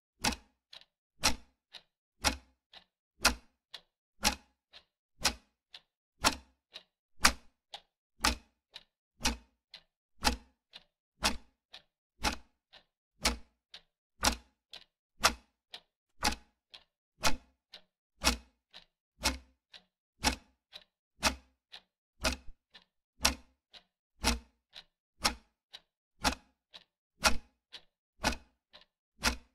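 Ticking-clock sound effect keeping time with a quiz countdown timer: a loud tick every second, with a softer tock halfway between each pair.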